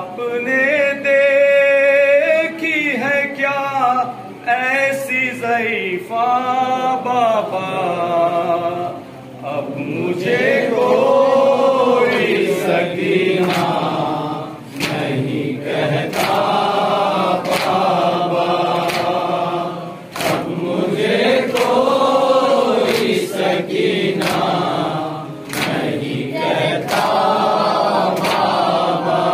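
Urdu noha (Shia lament) sung without instruments: one man's voice in long, wavering melodic phrases, then from about ten seconds in a group of voices takes up the chorus. Repeated sharp slaps of chest-beating (matam) keep time.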